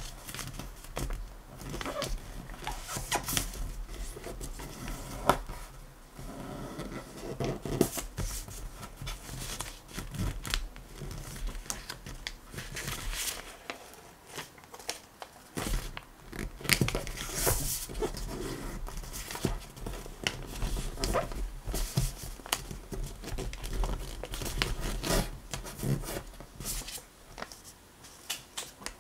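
A sheet of paper being folded and creased by hand into a paper airplane: irregular rustling and crinkling of paper with short crackles, on and off.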